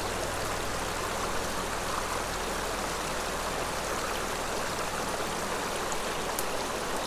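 Steady rush of running creek water.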